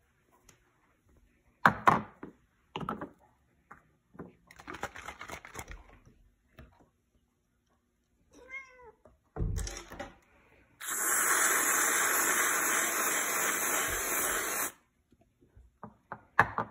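A domestic cat meows briefly amid a few sharp knocks and handling noises. Then an aerosol whipped cream can sprays in a loud, steady hiss for about four seconds.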